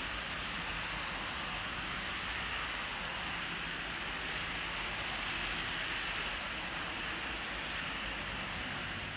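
Steady road traffic noise: the tyres of passing cars hissing on a wet street.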